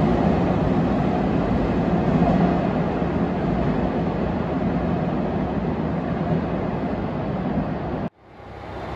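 A 413 series electric train running away from the platform, its steady rumble slowly fading as it recedes. The sound cuts off abruptly near the end.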